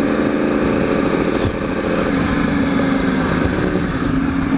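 Yamaha sport bike's inline-four engine running steadily while riding at low speed in traffic, with wind rushing over the helmet microphone. The engine note shifts slightly about two seconds in.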